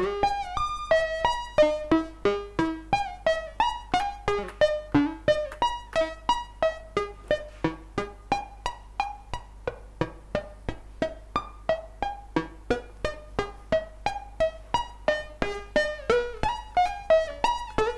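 PWM Malevolent synthesizer playing its 'Plink' lead patch: a fast run of short plucked-sounding notes, about three a second, stepping up and down in pitch, some with small pitch bends. The patch uses two saw-wave oscillators tuned a few cents apart with the drive maxed out; a steady low hum runs underneath.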